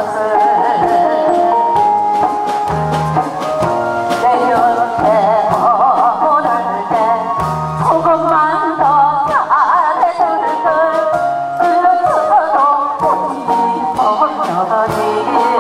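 A woman singing a Korean trot song into a microphone over instrumental accompaniment with a bass line and a steady beat, her held notes wavering with vibrato.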